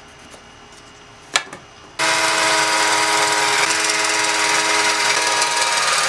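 Cordless drill with a stepped pocket-hole bit running at a steady pitch, boring a pocket hole into MDF through a clamped pocket-hole jig. It starts suddenly about two seconds in, after a single sharp click.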